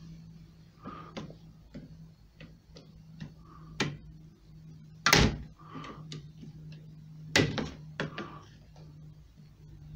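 Screwdriver prying and knocking at the plastic of a VW Golf door mirror housing: a run of irregular clicks and knocks, loudest about five and seven and a half seconds in, over a steady low hum.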